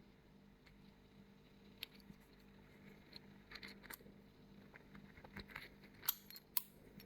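Faint clicks and small metal ticks from handling a stainless steel tubular padlock and its key, with two sharper clicks about half a second apart near the end.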